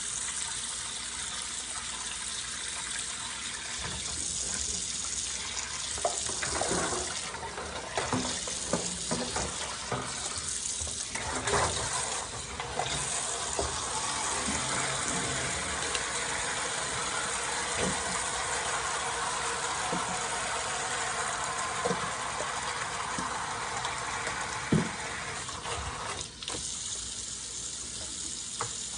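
Tap water running steadily into a sink while a wig is rinsed under it, with irregular splashes and knocks from the hair being handled.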